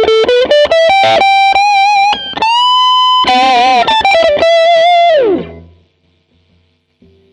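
Harley Benton SC-DLX Gotoh electric guitar played through a Hotone Ampero One set to a Mesa Boogie Mark IIC+ preset: a lead phrase of sustained single notes with bends and vibrato. About five seconds in it ends in a steep slide down in pitch and fades away.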